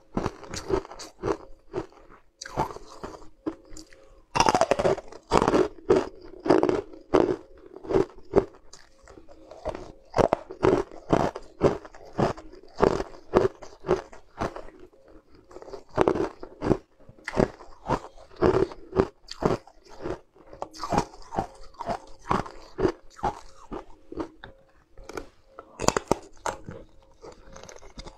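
Close-up chewing and crunching of hard pieces of sweet ice in the mouth: a rapid string of sharp crunches with a few short pauses.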